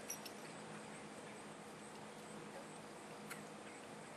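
Quiet outdoor ambience: a faint steady hiss with insects chirring and a few faint ticks.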